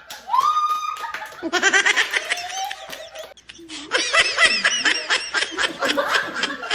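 People laughing hard in two long fits of rapid, repeated high-pitched laughter, with a brief rising vocal exclamation just before.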